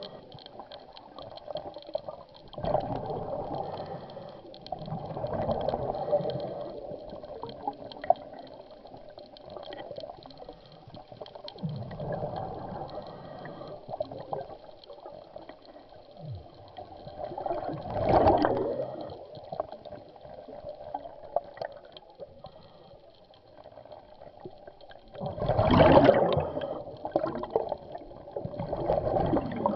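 Scuba diver's exhaled air bubbling out of the regulator underwater in gurgling bursts every few seconds, with the loudest bursts about 18 and 26 seconds in.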